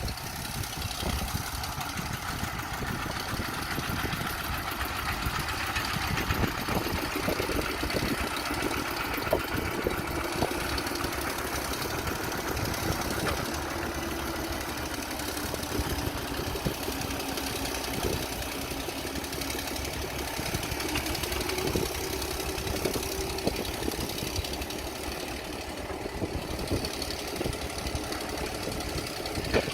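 Old excavator's diesel engine running with a steady, rapid clatter, a faint whine drifting up and down in pitch over it.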